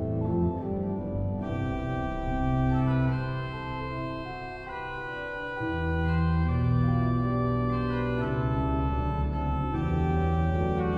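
Pipe organ playing held chords over a sustained bass line, with bright upper tones entering about a second and a half in; the bass thins out midway and returns strongly about six seconds in.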